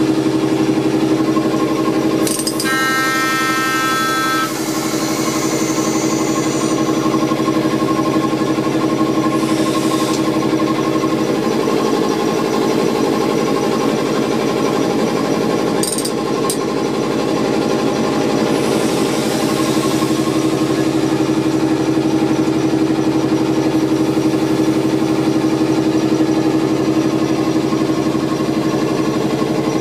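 Auxiliary machinery of a class 451 electric multiple unit, heard from the driver's cab, running steadily with a hum and a rapid rhythmic pounding as the unit is brought into service. A brief run of high electronic beeps comes about three seconds in, and two sharp clicks come a little past halfway.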